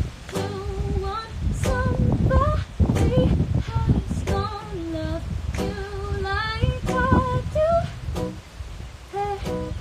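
A woman singing over a live acoustic guitar accompaniment.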